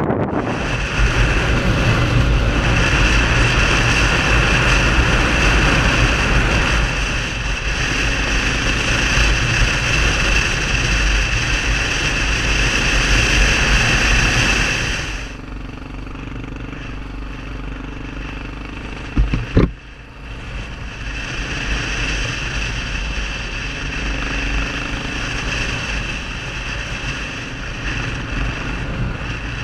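Motorcycle being ridden along a dirt track: the engine running under a steady rush of road and wind noise. The noise is loudest for the first half and drops noticeably after about 15 seconds. A couple of sharp knocks come a few seconds after that.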